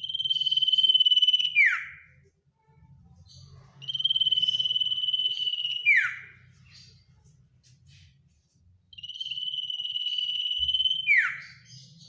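Common iora (sirtu/cipoh) giving three long whistles about four seconds apart. Each is held on one pitch for about one and a half to two seconds, then ends in a quick downward slur.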